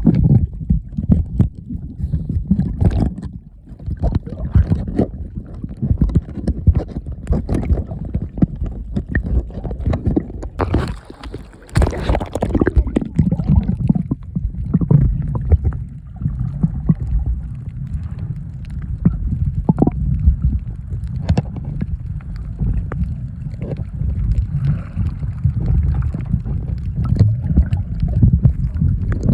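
Muffled sloshing and gurgling water over a steady low rumble, with irregular splashy bursts, the strongest a little under halfway through.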